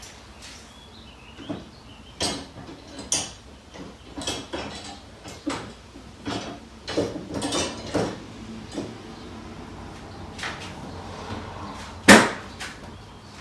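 Irregular knocks and clatter of things being handled, with a few close together around the middle and one sharp, loudest knock near the end.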